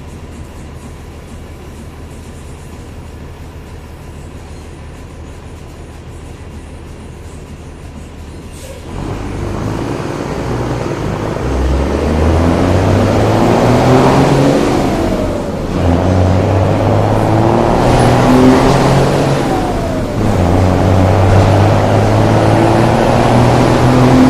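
A road vehicle's engine idling with a low hum, then, about nine seconds in, roaring under full throttle: three long, loud pulls with short dips between them, typical of gear changes.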